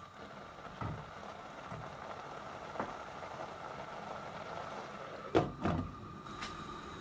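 Grated pumpkin halwa mixture sizzling and bubbling in a steel pan while a wooden spoon stirs and scrapes it with a few soft knocks. A little after five seconds a glass lid is set on the pan with two sharp clinks.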